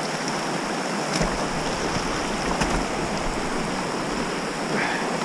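Shallow mountain river rushing over rocks, a steady hiss of flowing water, with some low wind rumble on the microphone.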